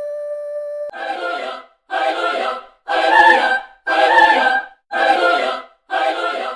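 Music: a steady held tone that cuts off about a second in, followed by six short choir chords, about one a second.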